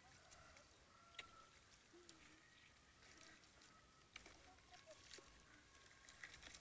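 Faint splashing and sloshing of feet wading through shallow, muddy paddy water, with a few short sharp ticks.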